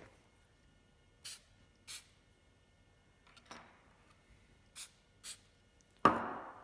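Aerosol can of CA glue accelerator giving four short spritzes, in two pairs a little over half a second apart, to cure freshly applied superglue. Near the end comes a loud sharp knock.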